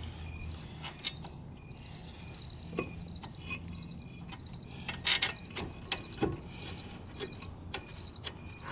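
Scattered light metallic clicks and taps as caliper bolts are threaded in by hand on a 2005 Ford Focus front brake caliper, with a sharper knock about five seconds in. A high chirping repeats about once a second in the background.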